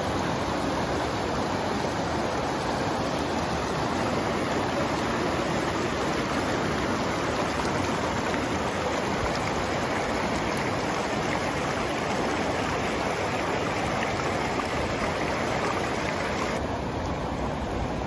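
Shallow mountain river rushing and splashing over boulders and small rapids, a steady loud rush of water that turns a little duller near the end.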